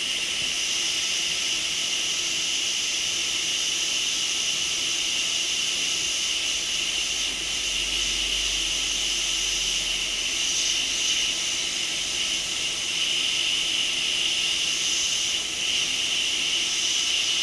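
Hot air rework station blowing a steady hiss of air at about 380 °C onto a chip, melting its solder so the chip can be lifted off the board.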